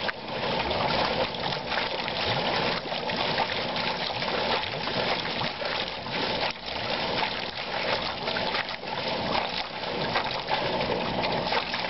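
Water gushing steadily from the open end of a PVC pipe into a metal trough and splashing. This is a newly drilled well being pumped out.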